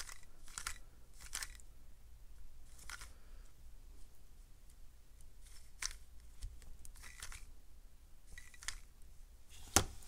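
3x3 speed cube's layers being turned by hand: faint, irregular plastic clicks and swishes, roughly one turn a second, as the white corner pieces are inserted into the first layer.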